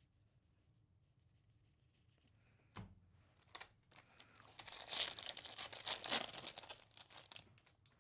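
A single dull knock about three seconds in, then the foil wrapper of a 2024 Topps Series 2 Baseball jumbo pack being torn open, crinkling and tearing for about three seconds.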